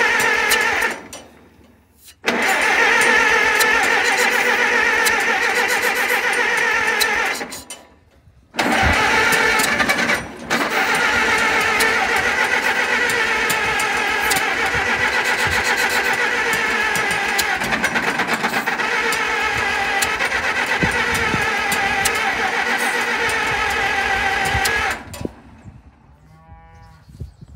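Massey Harris 44's four-cylinder gasoline engine being cranked over by its starter in three bursts, stopping briefly between tries, the last about sixteen seconds long, as the engine is tried after sitting with valves thought to be dry.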